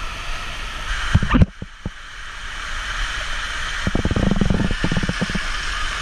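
Water rushing and splashing down a limestone waterfall cascade, a steady hiss of falling water. Low rumbling thumps come and go over it, about a second in and again from about four to five seconds.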